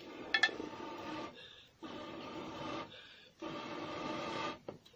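Breath blown through a long blow pipe into a wood cooking fire to fan the flames: three long blows of about a second each with short pauses between, each a breathy rush with a steady hollow tone from the pipe. A couple of sharp clicks come less than half a second in.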